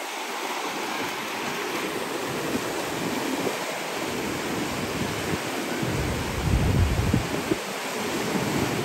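Surf breaking and washing up a sandy beach, a steady rush of noise, with a heavier low rumble for a second or so about six seconds in.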